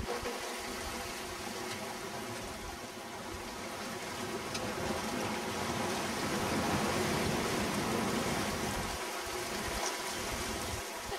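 Steady rush of sea water and wind as a sailing yacht moves under sail, a continuous hiss without breaks.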